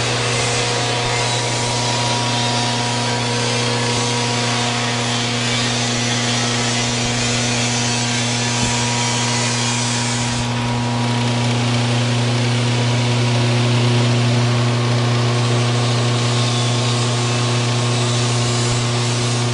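S. Howe 74 grinder-granulator running steadily with a strong low electric-motor hum and a whirring hiss over it; the hiss eases slightly about halfway through.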